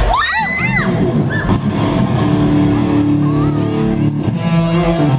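Electric guitar being sound-checked through an amplifier, holding sustained ringing notes. In the first second there is a short high sound that slides up and down several times.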